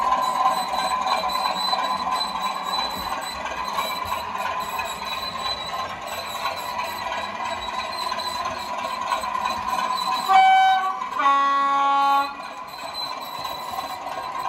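Sound-fitted OO-gauge model of a class 37 diesel locomotive (a converted Bachmann class 37/9) playing its recorded diesel engine running sound through its onboard speaker. About ten seconds in it sounds its two-tone horn: a short higher note, then a longer, louder lower note.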